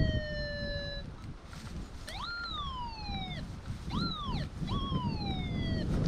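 Metal detector sounding its target tone about four times as the coil is swept over a buried target, each tone jumping up and then sliding down in pitch. The detector is reading the target as worthless junk.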